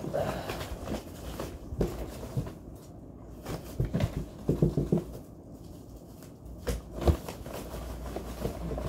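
Rustling and crinkling of plastic-wrapped items and knocks against a cardboard box as things are handled and lifted out of it. Irregular small clicks and rustles, busier about four to five seconds in, with a sharp knock about seven seconds in.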